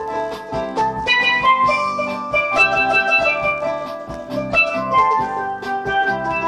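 A pair of steel pans played with mallets: a melody of quick, ringing struck notes with a rhythmic accompaniment underneath.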